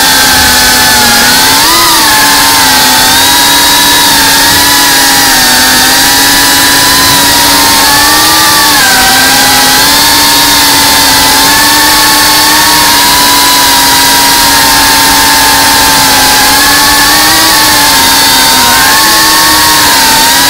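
FPV quadcopter's brushless motors and propellers whining steadily, heard loud and close from the onboard camera. The pitch swells and dips a few times with throttle changes, with a quick rise about two seconds in.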